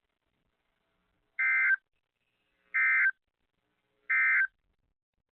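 NOAA Weather Radio SAME end-of-message code: three short bursts of data tones, each about a third of a second long and spaced about a second and a half apart. They mark the end of the severe thunderstorm warning broadcast.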